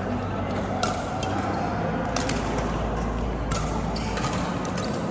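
Badminton rally: rackets striking the shuttlecock with sharp smacks about every second and a half, three or four hits, over a steady background hum.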